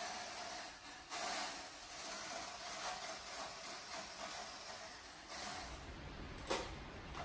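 Handheld electric mixer running in a bowl, beating an avocado and cream mixture for ice cream: a steady motor hum with a hissing churn. It stops near the end, followed by a single knock.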